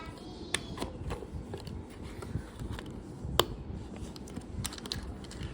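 Lego bricks being handled, giving a scattering of light plastic clicks, the sharpest about three and a half seconds in and a quick cluster near the end, over a low steady rumble.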